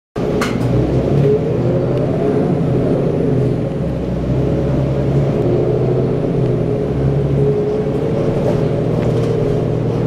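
Onboard sound of an Orion VII NG transit bus with a Cummins ISL inline-six diesel and Allison B400R transmission, heard from inside the cabin: a steady low drone, rising in pitch briefly about two seconds in. A short rattle sounds near the start.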